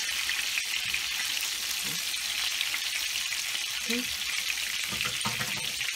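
Coated fish fillets frying in hot oil in a frying pan: a steady sizzle with dense crackling spatter.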